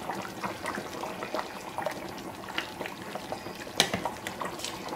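Pot of meat sauce bubbling, a dense crackle of small pops, with one sharper click about four seconds in.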